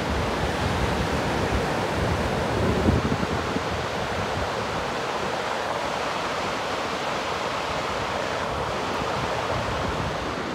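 Fast, muddy mountain river rushing steadily below, a continuous wash of water noise, with wind buffeting the microphone.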